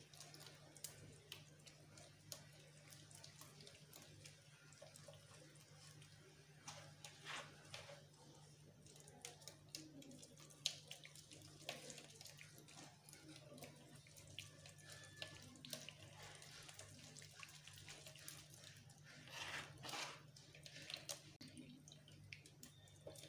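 Faint scraping and sloshing as a plastic ladle stirs and presses blended pineapple pulp through a plastic sieve, with juice dripping into the basin below; scattered small clicks over a low steady hum.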